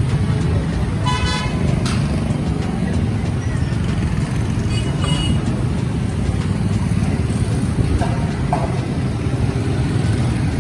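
Busy street traffic, motor vehicles running with a steady low rumble, and short vehicle horn toots about a second in and again about five seconds in.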